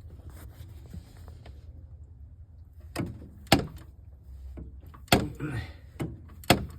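Sharp metallic clicks, about six in the second half, against a low steady hum, as the camshaft of a Ford 3.5 EcoBoost V6 is turned by hand with the valve cover off. The clicks come from the faulty intake camshaft phaser slipping, the source of the engine's cold-start knock.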